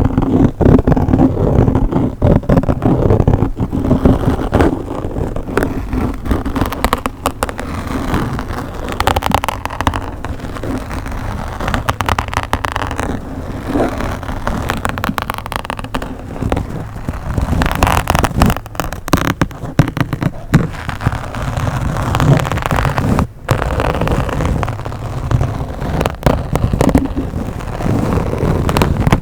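Scratching and rubbing directly on a microphone: a continuous, loud scratchy rumble thick with crackles and pops, cutting out for a moment about three quarters of the way through.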